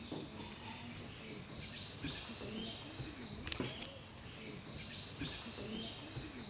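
Tropical rainforest ambience: a steady high-pitched drone of insects, with repeated low rising-and-falling animal calls and scattered chirps over it.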